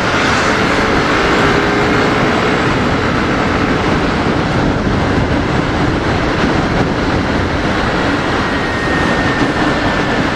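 Steady rush of wind and road noise on a helmet-mounted microphone while riding a motorcycle at speed, with a faint engine drone underneath.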